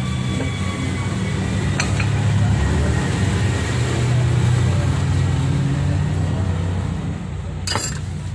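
A motor vehicle engine running nearby with a low, uneven rumble. Near the end comes a sharp clink as a clay pot is set down on the counter, and there is a lighter click about two seconds in.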